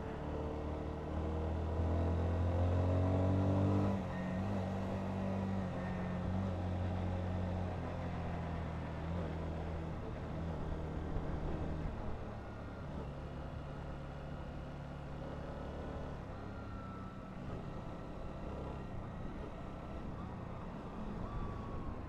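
Honda CBR125's single-cylinder four-stroke engine under way, revving up over the first few seconds. Its pitch drops about four seconds in and it runs steadily, then it goes quieter from about twelve seconds in as the throttle eases.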